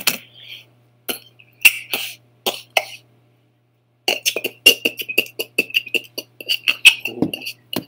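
Beatboxing: a man making percussive pops and clicks with his mouth into his cupped hand, heard over a video-chat connection. A few scattered beats come first, then a break of about a second, then a fast steady run of beats from about four seconds in.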